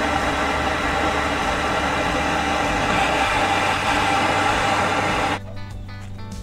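Handheld propane torch burning with a steady, loud hiss as it heats a rusted hydraulic line nut on a truck's clutch slave cylinder to free it; the flame is cut off abruptly about five seconds in.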